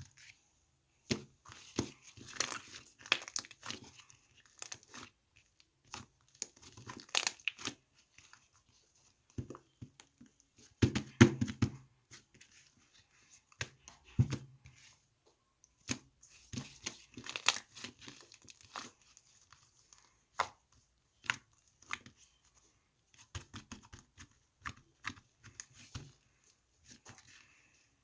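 Crinkly material handled by hand, tearing and crumpling in irregular clusters of a second or two with short pauses between them. The loudest cluster comes about eleven seconds in.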